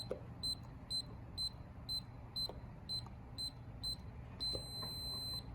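Sowheel DK01 keypad deadbolt beeping once for each button press as a code is keyed in, about two short high beeps a second. Near the end comes one long steady beep, the lock's signal that it has accepted the code and entered programming mode.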